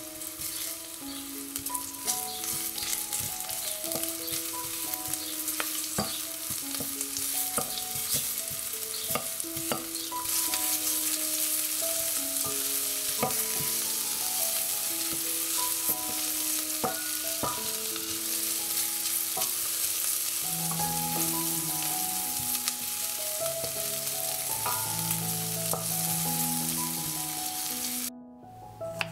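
Sliced onions sizzling in hot oil in a stainless steel pot, stirred with a wooden spoon that clicks and scrapes against the pot. The sizzle grows louder about a third of the way in and cuts off suddenly just before the end.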